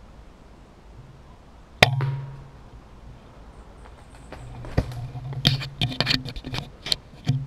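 A single shot from an air rifle, one sharp crack about two seconds in. From about halfway through, irregular crunching and rustling in dry fallen leaves.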